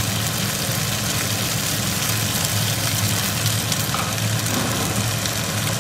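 Spaghetti with mushrooms and tomatoes sizzling in a frying pan, a steady hiss with faint crackles, over a steady low hum.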